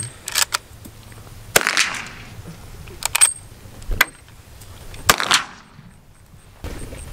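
Lever-action rifle firing two shots about three and a half seconds apart, each with a short echoing tail, and sharp metallic clicks between them as the lever is worked.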